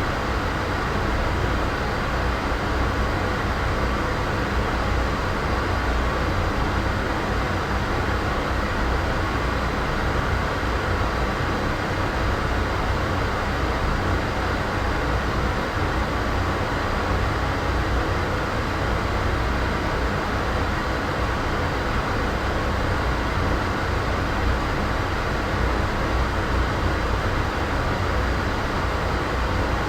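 Steady ambient noise bed for editing: an even, unchanging rumble and hiss, strongest in the low end, with a faint steady hum and no distinct events.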